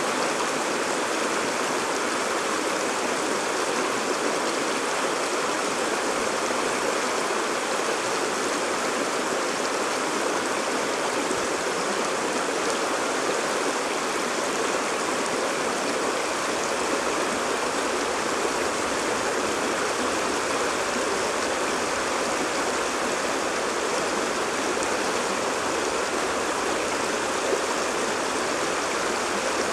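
Shallow, rocky stream running fast over stones in small rapids: a steady, even rush of water.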